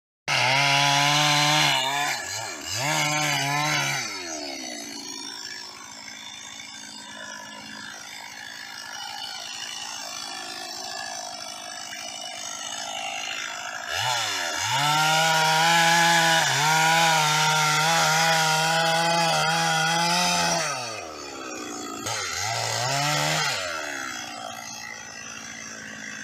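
Stihl two-stroke chainsaw revving to full speed and sawing through a log in several bursts, the longest in the second half. Between cuts the engine falls back to a lower, quieter run.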